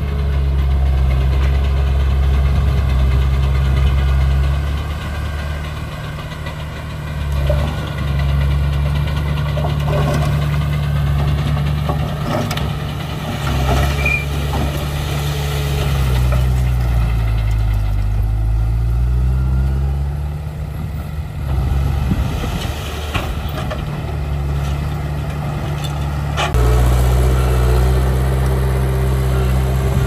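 Heavy diesel engine of earthmoving machinery running steadily, its pitch sagging and recovering around the middle as it takes load, with occasional metallic knocks.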